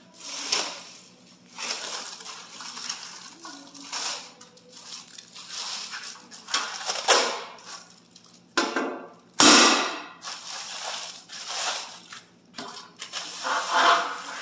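Plastic wrapping crinkling and rustling in irregular bursts as long wrapped parts are handled, with one sharp knock about nine seconds in, the loudest sound.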